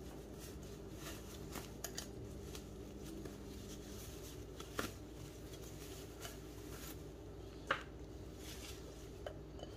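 Faint handling of a cotton cloth bundle, with a few soft clicks and rustles (the clearest about five and eight seconds in) over a steady low hum: the rubber band being taken off the cloth tied around drained curd.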